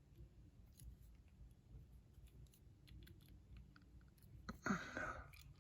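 Faint, scattered light clicks of a lock pick and tension wrench working inside a lock, with a brief louder rustle about four and a half seconds in.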